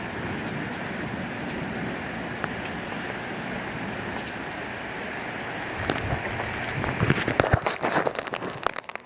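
Heavy rain falling steadily in a severe thunderstorm. About six seconds in, irregular louder crackles and knocks join it.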